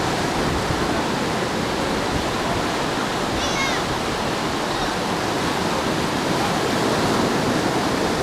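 Ocean surf washing onto the beach, a steady rushing noise, with a short high chirp about three and a half seconds in.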